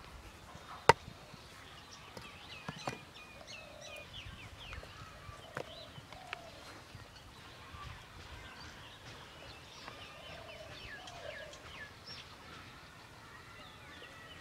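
Birds chirping and calling all through, over a quiet outdoor background. A single sharp click about a second in, and a few fainter knocks later, as hands pull at clods of dry, cracked mud.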